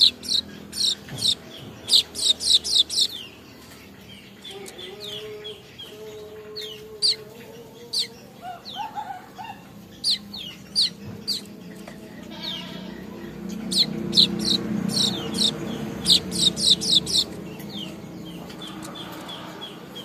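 Caged manyar weaver birds giving quick runs of short, sharp chirps that fall in pitch, bunched in bursts with quieter gaps between: a weaver still learning its song. Fainter, lower calls sound underneath.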